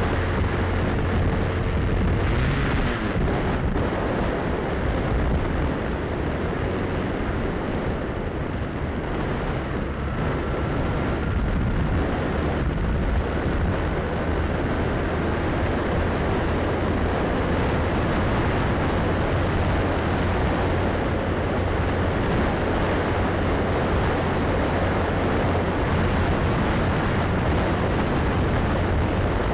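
Honda Rebel motorcycle engine running steadily at cruising speed, mixed with wind and road noise.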